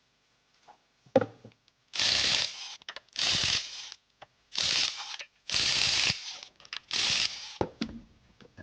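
Five short bursts of hissing, about a second apart, with a few small clicks and knocks between them.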